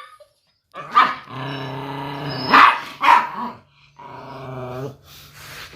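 A dog growling steadily, breaking into two short barks, then growling again more quietly.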